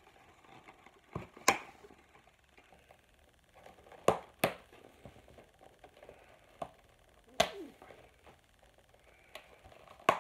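Action figure packaging being handled and opened by hand: a handful of sharp plastic-like clicks and snaps a few seconds apart, the loudest about a second and a half in, with soft rustling between them.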